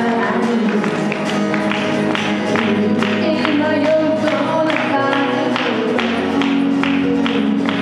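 Live band music from electronic keyboard and guitar over a steady beat.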